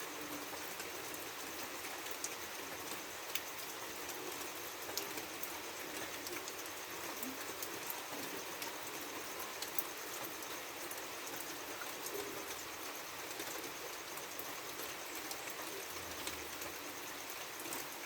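Heavy rain falling on a khaprail roof of clay tiles: a steady hiss with scattered sharper ticks of drops striking the tiles.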